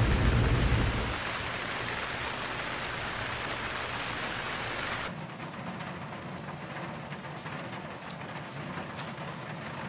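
Steady rain hiss, with a low car-engine rumble dying away in the first second. About five seconds in, the heavy rain cuts off abruptly to a quieter, lighter hiss.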